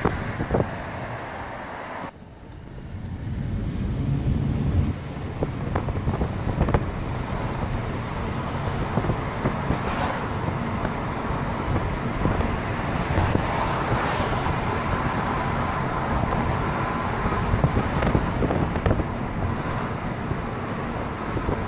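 Steady road noise of a moving vehicle, a low rumble with wind on the microphone and small scattered knocks. The noise drops briefly about two seconds in, then builds back up.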